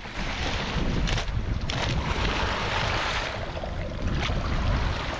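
Wind buffeting the microphone over the wash of the sea, with a few short knocks.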